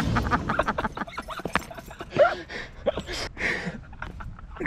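Box of butane lighters burning, crackling with repeated sharp pops as individual lighters burst, and a couple of short hissing bursts around three seconds in. A brief bending vocal sound, like a laugh or yelp, comes about two seconds in.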